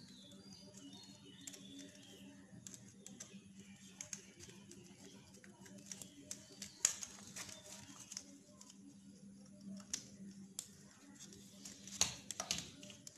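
Irregular small clicks and taps of a screwdriver and wires against the screw terminals and plastic plate of an extension board as the earthing wires are fastened. The louder taps come around seven and twelve seconds in, over a faint steady low hum.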